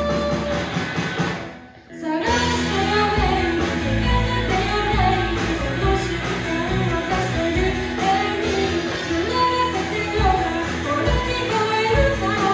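A live rock band plays in a room: electric guitars, bass and drum kit, with a singer on a microphone. The music drops away briefly about two seconds in, then the band and the singing start up again.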